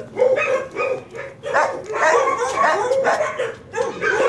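Dog barking and yipping in quick, repeated short calls.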